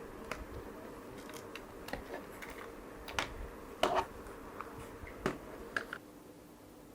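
Scattered small clicks and taps of tiny parts and tools being handled on a workbench, a few louder ones about halfway through, over a faint steady hum.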